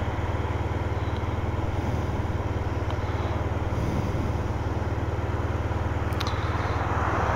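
Motorcycle engine idling steadily with the bike standing still, an even low hum that does not change.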